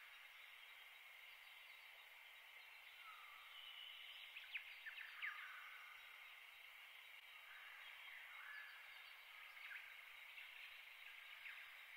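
Near silence: a faint steady ambient hiss with a few faint high chirps and two soft ticks about four and five seconds in.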